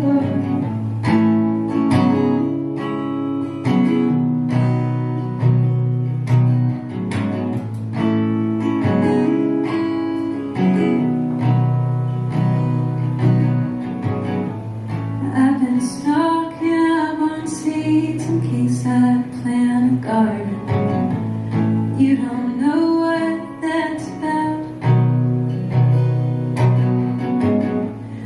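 Acoustic guitar strummed in a steady rhythm as song accompaniment, with a singing voice joining over it about halfway through.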